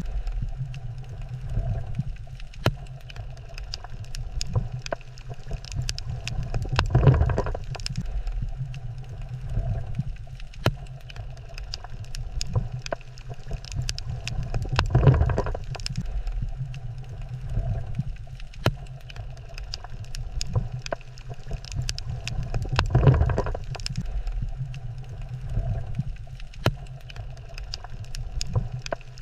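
Underwater coral reef ambience: a low rumble that swells and fades about every eight seconds, with scattered sharp clicks throughout.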